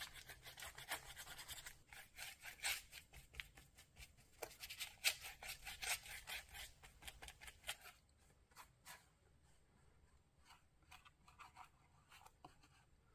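Paintbrush bristles scrubbing watercolour paint over a textured paper page: faint, quick scratchy strokes, thinning to a few scattered ticks about eight seconds in.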